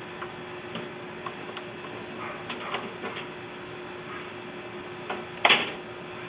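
Light clicks and knocks of metal parts being handled while a microwave is taken apart for scrap, with one loud clatter about five and a half seconds in. A faint steady hum runs underneath.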